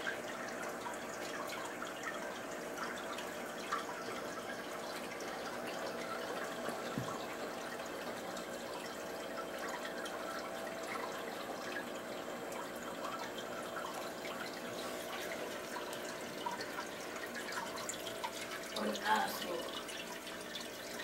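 Water trickling and dripping steadily in a home aquarium as its water is circulated, with a faint steady hum underneath.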